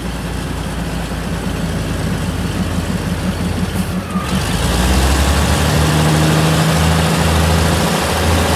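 Diesel train's engine running with a steady low throb, growing louder as it draws near; about halfway through, a loud rushing noise of the train coming close joins it.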